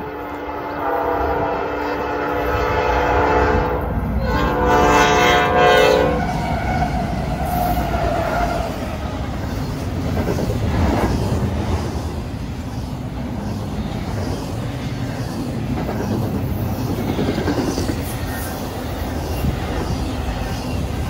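Freight locomotive's air horn sounding a chord, held for about four seconds, then after a brief break for about two more. Then a passing double-stack intermodal freight train, a steady rumble and clatter of wheels on rail.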